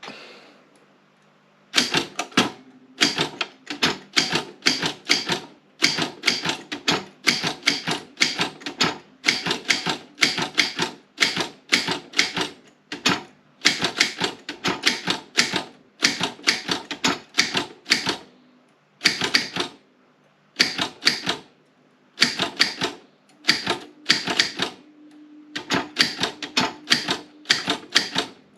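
Optima M16 manual typewriter being typed on: quick runs of sharp keystroke clacks, several a second, with a few short pauses.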